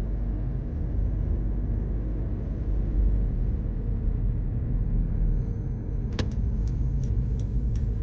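Car driving along, a steady low rumble of road and engine noise. About six seconds in, a run of light, irregular ticks starts over the rumble.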